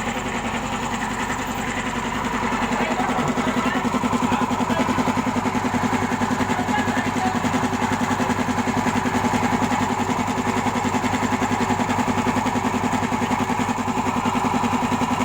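A 1.5 hp air compressor running on its newly rewound electric motor under test: a steady mechanical hum with a fast, even pulsing. It grows a little louder about two seconds in.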